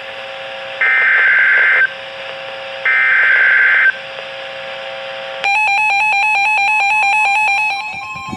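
NOAA Weather Radio EAS alert: SAME header data bursts, two harsh one-second screeches of digital data about two seconds apart, then about five and a half seconds in the steady, buzzy attention alarm tone starts, dropping away near the end. It signals that a warning is about to be read.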